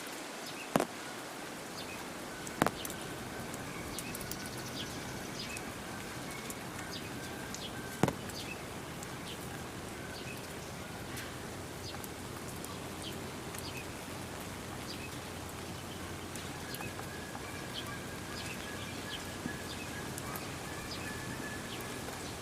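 Steady outdoor background noise with scattered faint bird chirps and three sharp clicks, about one, three and eight seconds in.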